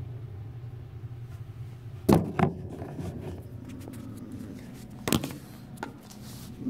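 A steady low hum with several sharp knocks: a loud pair about two seconds in and another pair about five seconds in.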